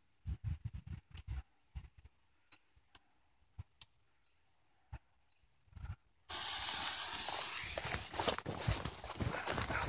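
Scattered clicks and crackles of a lighter and dry fir branches as a fuse is lit, then about six seconds in a sudden steady hiss sets in, with quick footsteps through grass.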